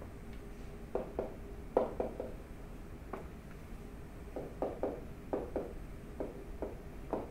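Stylus tapping and scratching on a writing tablet as words are handwritten: a run of short, irregular taps in small clusters, over a faint steady hum.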